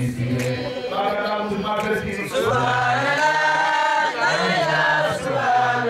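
Voices chanting together in long, held notes.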